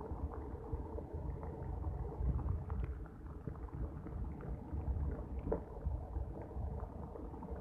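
Heavy rain pouring down, heard through a rain-wet phone microphone: a steady, muffled low rumble with faint scattered taps, the higher sound of the rain mostly missing.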